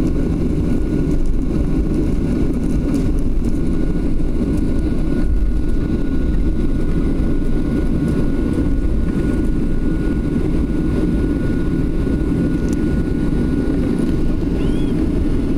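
Cabin noise inside a Boeing 737-800 taxiing: a steady low rumble from its CFM56-7B engines at taxi power, with a thin steady whine that fades out about three quarters of the way through.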